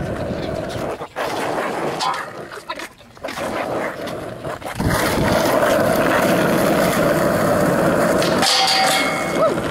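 Skateboard wheels rolling on asphalt, growing loud about five seconds in. Near the end the board slides along a low metal flat bar and comes down with a sharp clack.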